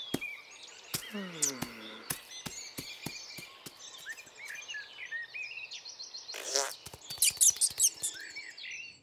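Cartoon countryside ambience: birds chirping and tweeting throughout, with scattered light taps and clicks. A short falling pitched sound comes about a second and a half in, and a brief rushing burst about six and a half seconds in, followed by a flurry of sharp high chirps.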